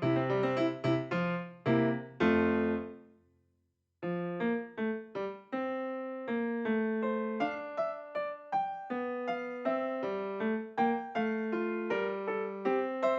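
Background piano music. A phrase ends and dies away about three seconds in, there is a brief silence, and the piano starts again about four seconds in.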